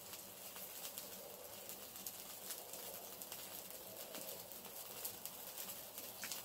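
Faint crackling and spitting of sausages grilling over barbecue coals on a small Hexi stove, scattered light clicks throughout. A pigeon coos softly in the background.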